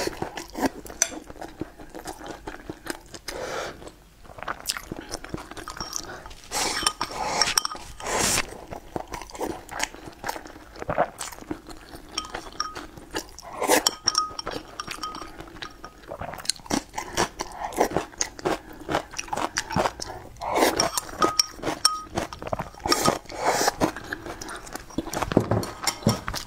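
Close-miked eating sounds: chewing and biting, wet mouth noises, and chopsticks clicking against a ceramic bowl held to the mouth.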